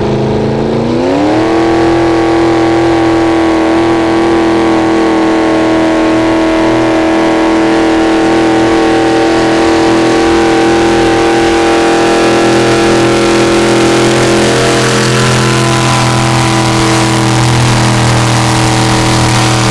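Gasoline engine of a 1995 Ford pickup on a pulling sled run. The engine revs up sharply about a second in, then holds high, steady revs under load.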